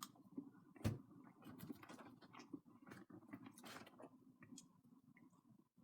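Faint eating and handling noises as chips (fries) are taken up and eaten: soft clicks and rustles, with one sharper click about a second in.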